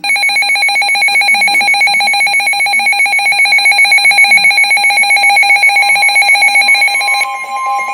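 Weather radio alert alarm: a loud, rapidly trilling electronic tone. About six seconds in, a steady higher tone joins it, the kind of warning tone that comes before a National Weather Service alert message.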